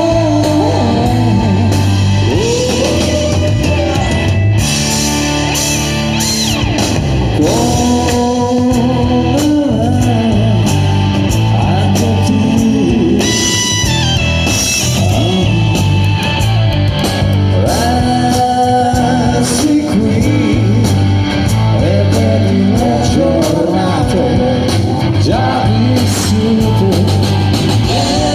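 Rock band playing live, with electric guitar, bass and drums under a lead vocal.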